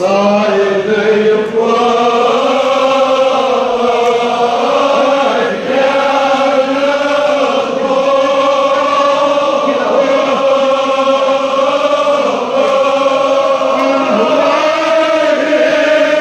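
A crowd of men chanting a Kashmiri marsiya (elegy) together, in long held, slowly wavering notes.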